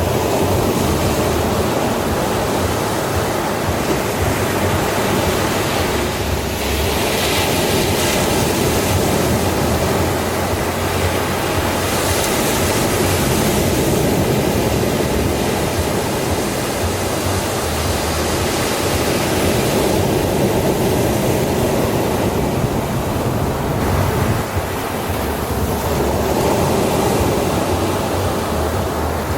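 Ocean waves breaking and washing onto a sandy shore, a continuous rush of surf that swells every several seconds.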